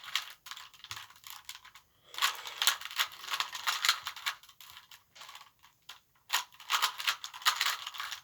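Rubik's Cube being turned fast in the hands: rapid runs of plastic clicks and rattles as the layers snap round, with short pauses between runs. The turns are repeated moves to get the last-layer corners to line up.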